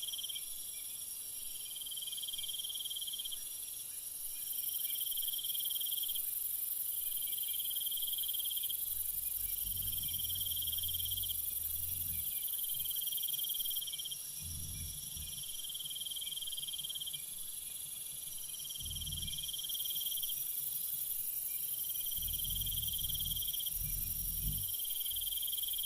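Cricket-like insect trill: long, high pulses of about a second and a half, repeating about every two and a half seconds over a steady high hiss, with a few faint low thumps.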